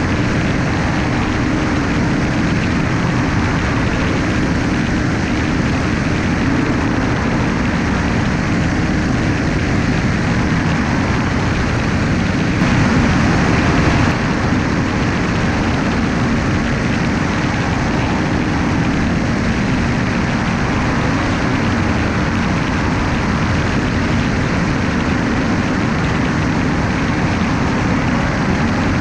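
Steady in-flight drone of a light aircraft's engine and propeller, heard from a camera mounted on its wing, with a dense rush of noise over it; it swells briefly about thirteen seconds in.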